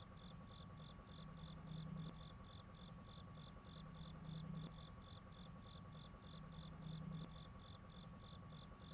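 Faint, steady insect chirping, cricket-like, about three short high chirps a second, over a low hum that swells and fades every couple of seconds.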